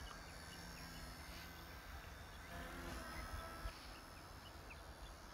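Faint hum of a small electric RC helicopter (XK K110) flying at a distance, the hum rising briefly about halfway through, over a steady high chirring of insects.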